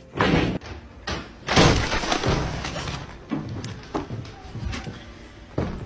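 Several knocks and thumps. The loudest is a longer noisy clatter about one and a half seconds in.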